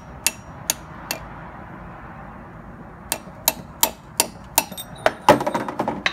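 Hammer tapping the end of an angled-tip pry tool wedged against a stuck CV axle's inner joint, working the axle loose from the transmission. Three light taps, a pause of about two seconds, then steady taps that speed up into a quick run of strikes near the end.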